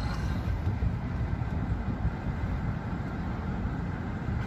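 Road noise of a moving car heard from inside its cabin: a steady low rumble.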